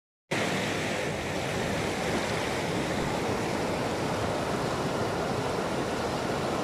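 Fast-flowing mountain river rushing over stones, a steady loud rush of water that starts after a brief moment of silence.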